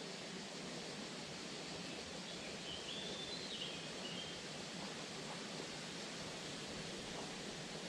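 Steady outdoor ambient noise, an even hiss, with a faint short high-pitched bird call about three seconds in.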